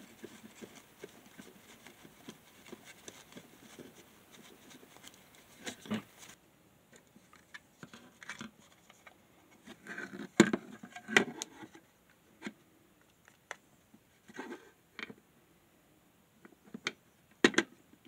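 Light, rapid scratchy rubbing, as when flux is scrubbed off a circuit board with alcohol. After an abrupt change in background, scattered clicks and knocks of a plastic power-meter case being handled, the loudest about ten and seventeen seconds in.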